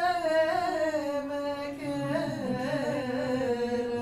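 A woman singing a slow melody in long held notes that glide gently in pitch.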